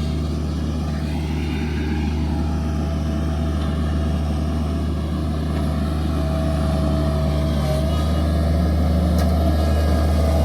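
Bobcat MT100 mini skid steer's diesel engine running steadily at working speed, with a deep, even drone that grows slightly louder near the end.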